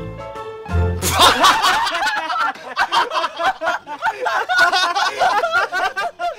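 A brief music cue, then several men laughing loudly together from about a second in.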